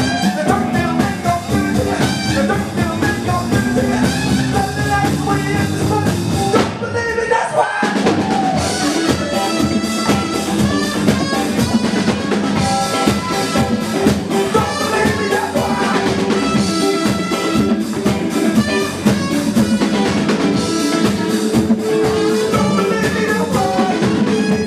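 Live band playing: drum kit, electric guitar and bass with a singer and a trumpet. About seven seconds in, the bass and drums drop out for about a second, then the full band comes back in.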